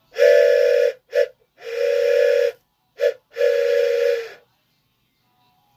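Wooden toy train whistle blown five times: three long toots with two short ones between them. Each toot is a breathy chord of several close tones, like a toy steam-locomotive whistle.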